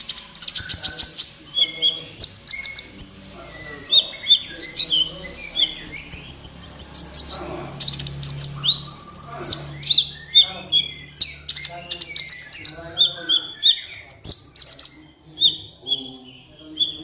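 Kolibri ninja sunbird singing energetically: a fast, unbroken run of high, sharp chirps and short trills, with brief pauses between phrases.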